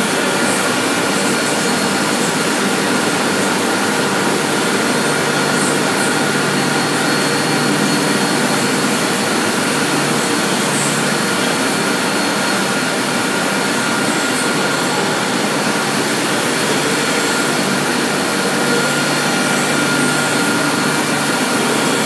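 Industrial infrared glass dryer running, its blowers making a loud, steady whoosh with a thin, steady high whine.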